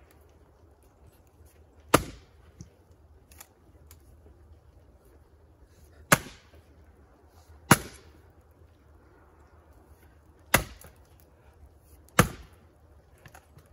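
Axe splitting firewood: five sharp chopping strikes into wood rounds, unevenly spaced a second and a half to four seconds apart, with a few fainter knocks between them.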